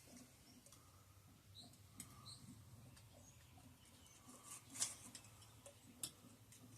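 Near silence: room tone with a few faint, short clicks and taps from handling on the workbench, the clearest about five seconds in.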